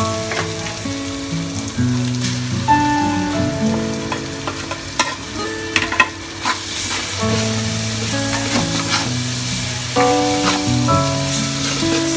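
Sliced onions sizzling as they fry in oil in an aluminium pot, stirred with a metal spatula that scrapes and clicks against the pot a few times around the middle. A background melody of held notes plays along.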